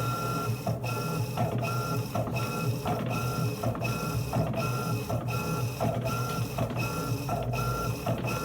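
Electrolux LT15F top-loading washing machine running its agitation cycle, with the motor and transmission humming and a regular repeating beat under a second apart as the agitator drives back and forth. The transmission has a freshly replaced bearing, and the run shows the repair.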